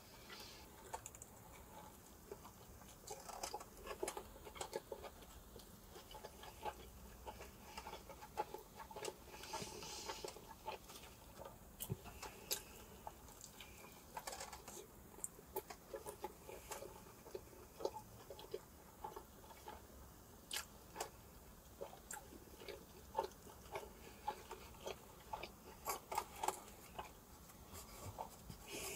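A person quietly biting and chewing a juicy birria taco, with scattered short wet mouth clicks and smacks.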